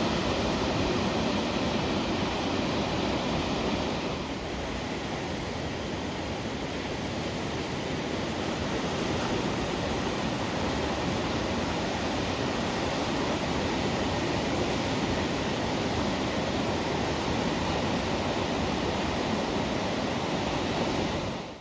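Ocean surf: a steady rushing wash of breaking waves, easing off slightly about four seconds in and building back up.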